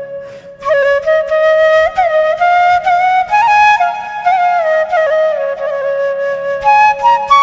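Flute playing a slow melody of held notes joined by smooth slides in pitch, with a faint low drone underneath.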